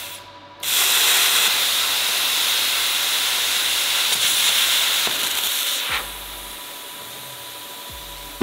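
Harbor Freight Titanium air plasma cutter cutting 18-gauge sheet steel: a loud, steady hiss of the arc and air jet that starts about a second in and cuts off about six seconds in.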